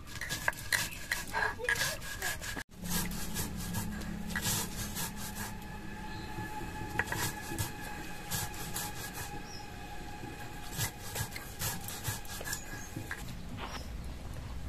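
Stone roller grinding chocolate biscuits on a flat stone slab (shil-nora): repeated gritty scraping and rubbing, with crisp crunching clicks of biscuit pieces breaking in the first few seconds, then a steadier rasp as the biscuits turn to powder.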